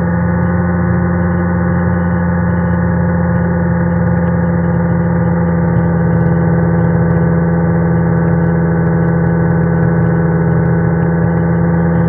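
Rans S6 light aircraft's engine and propeller droning steadily in level cruise, heard from inside the cockpit, with an even, unchanging pitch.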